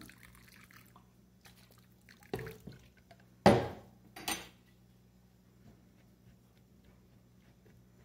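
Liquor poured from a bottle through a plastic mesh strainer, trickling and dripping faintly, then a few sharp knocks as the bottle is handled and set down on the counter, the loudest about three and a half seconds in.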